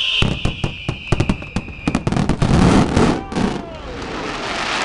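Aerial fireworks display: rapid shell bursts and bangs, with a high whistle falling in pitch over the first two seconds. About two seconds in, the bangs give way to a dense rush of crackling.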